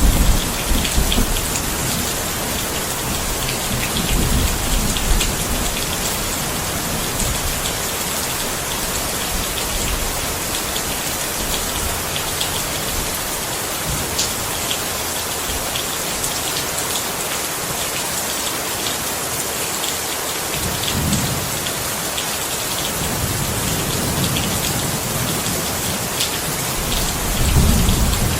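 Steady heavy rain falling on a surface, a dense even hiss, with low thunder rumbling at the start, a few seconds in, around two-thirds of the way through and again near the end.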